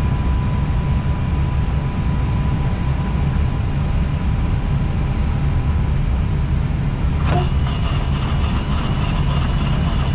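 Steady low rumble of airflow and engines in an Airbus A320 cockpit on approach. About seven seconds in, the windshield wipers start, adding a steady higher whine and faint regular knocks over the rumble.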